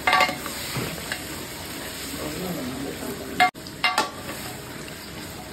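Mutton sizzling in a large aluminium pot as a long steel ladle stirs it. The ladle clanks against the pot right at the start and twice more about three and a half to four seconds in.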